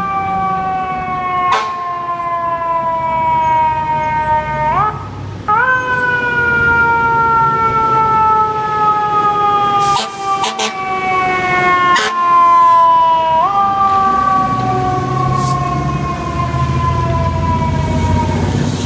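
FDNY fire truck siren: its pitch jumps up quickly twice, then slowly slides down each time, over the low rumble of the truck's engine. A few short sharp clicks are heard around the middle.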